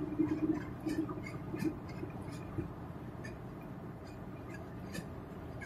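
Steady low road and engine rumble heard inside a Chevy Aveo's cabin at highway speed, with scattered light ticks and clicks.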